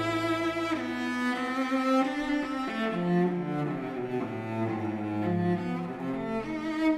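Background music: a cello melody of sustained bowed notes over low strings.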